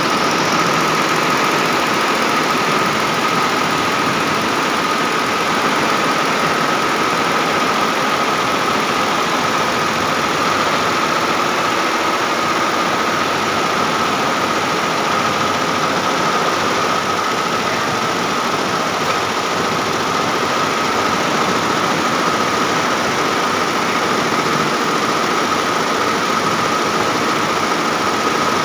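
Multi-head computerized embroidery machine (TG Premium heads) running, its many needles stitching at high speed in a steady rapid clatter with a constant high whine over it.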